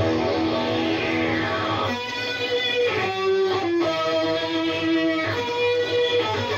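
Electric guitar played through a Digitech Dirty Robot synth pedal with gain, giving held, synth-like notes that change pitch every second or so, with a falling filter sweep over the first two seconds.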